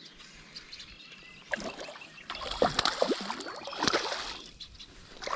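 A hooked fish thrashing and splashing at the water's surface as it is reeled in close to the bank, a run of irregular splashes from about a second and a half in until near the end.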